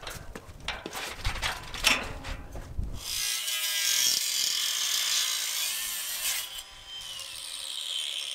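Cordless angle grinder with a cut-off wheel cutting through square steel tubing, finishing a cut already scored from outside. The first three seconds hold a run of clicks and knocks. Then comes about three seconds of steady grinding as the wheel goes through the metal, and the motor winds down with a falling whine about six and a half seconds in.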